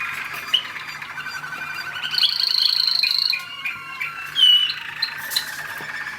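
American Singer canary singing a continuous song of rapid trills and rolls, with a held high whistle about halfway through and a few sharp chirps.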